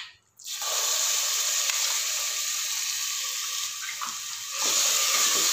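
Ground spice paste frying in hot oil in a pressure cooker: a steady sizzle that starts about half a second in and gets louder near the end.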